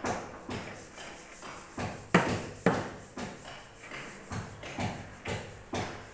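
Hand tapping on a freshly laid 80 × 80 cm granite floor tile: about a dozen sharp knocks, roughly two a second, each with a short ring, a few of them louder.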